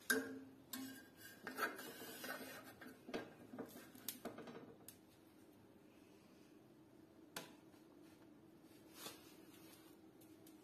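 Light clicks and knocks of a fork and spatula against a serving tray, many in the first few seconds and then two more spaced apart, over a faint low steady hum.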